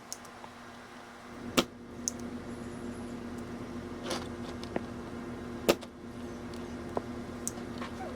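Steady electric hum from desoldering equipment, switched on with a sharp click about a second and a half in, with two more sharp clicks of tools against the circuit board during component removal.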